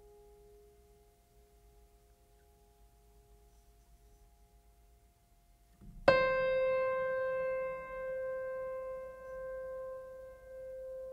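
Background music: faint held tones, then about six seconds in a single loud struck piano note that rings on and slowly fades.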